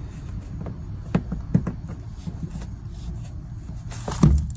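Sharp clicks and knocks of plastic push rivets being pressed into the underside of a car's bumper fascia: a few spaced out, the loudest near the end, over a low steady rumble.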